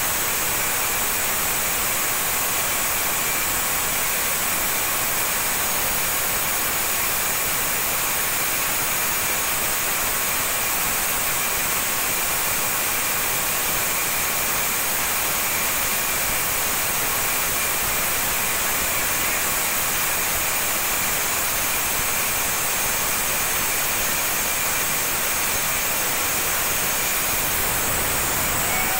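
Homemade sawmill running steadily: a constant hissing mechanical noise with a few thin, even whining tones and no change in pace.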